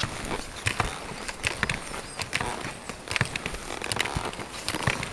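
Ski-touring skis and boots working through snow: a run of irregular sharp clicks and crunches over a steady hiss.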